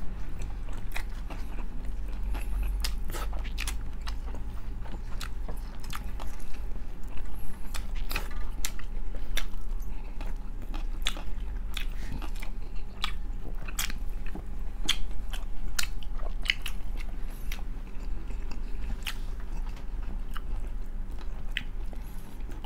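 Close-up biting and chewing of crispy pata's fried pork skin, many sharp irregular crunches, over a steady low hum.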